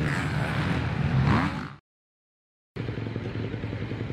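Motocross bike engines revving, their pitch rising and falling, then cut off abruptly by about a second of dead silence. After that a steady low mechanical hum comes in.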